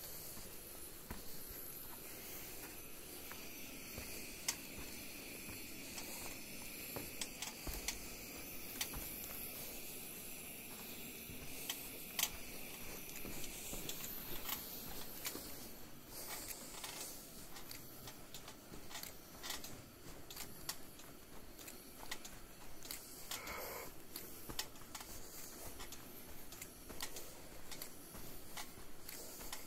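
Footsteps on a gritty, sandy marl floor and handling noise from a handheld camera: scattered soft clicks and scuffs over a steady low hiss.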